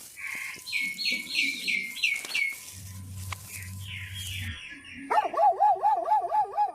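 A bird giving a quick series of short chirps, each sweeping downward, followed from about five seconds in by a dog's loud, high, wavering whine.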